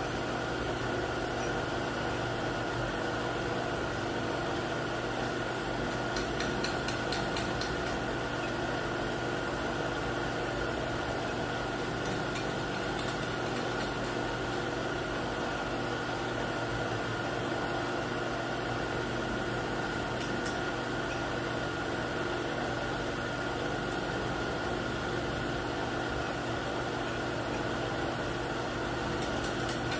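Sharp HMV CNC knee mill running a pocket-milling program in a wooden block: a steady hum with a constant high whine from the spindle drive, and a few faint ticks along the way.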